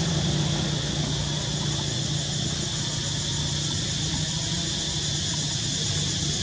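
Steady outdoor background drone: a low engine-like hum that eases off about four seconds in, under a steady high-pitched hiss.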